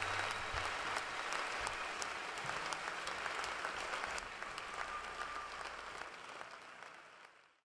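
Concert audience applauding, the clapping fading out over the last second or so.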